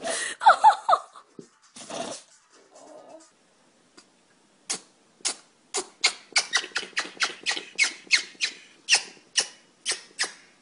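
An animal sneezing: a squeaky, high-pitched sneezing sound in the first second, then, from about five seconds in, a long run of short, sharp sneezes, two to four a second.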